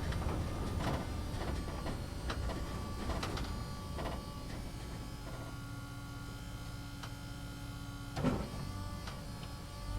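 A small motor whirring steadily, with scattered light clicks and one louder knock about eight seconds in.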